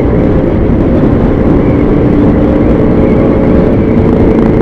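Wind rushing over the microphone of a motorcycle at steady speed, with the KTM RC 200's single-cylinder engine holding a steady note underneath.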